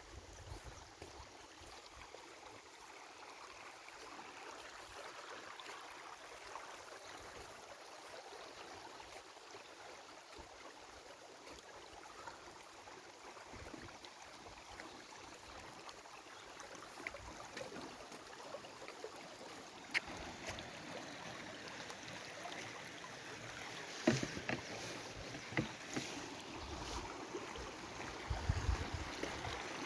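Waterfall and stream water rushing steadily, an even hiss of falling and flowing water. A few sharp clicks sound in the second half, and there are low bumps near the end.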